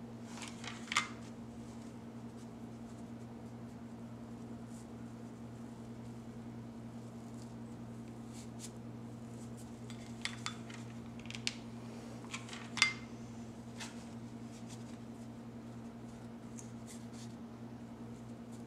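Small handling sounds of hot-glue crafting: a few light clicks and taps from a glue gun and a glass candle holder being picked up and set down, a cluster of them past the middle, over a steady low hum.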